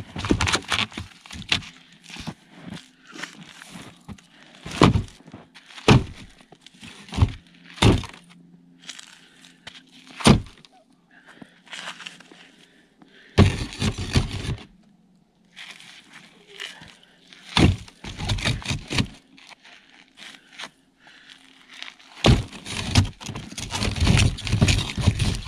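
Split firewood pieces knocked together and set into a plastic sled: a series of sharp wooden thunks and knocks, with longer stretches of clattering about halfway through and near the end.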